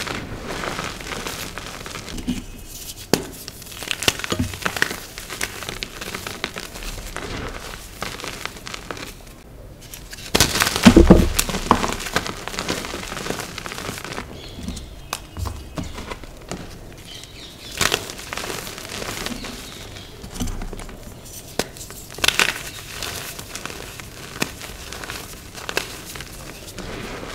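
Dyed gym chalk being crushed and crumbled: dry crackling and crunching with scattered sharp snaps. The loudest crunch comes about eleven seconds in.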